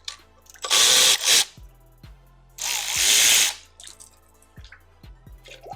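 Cordless power tool running in two short bursts, each under a second, removing fasteners during engine disassembly.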